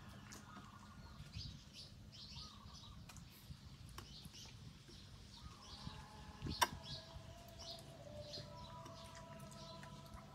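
Faint birdsong: small birds chirping over and over, with a few longer whistled notes. A single sharp click about six and a half seconds in is the loudest sound.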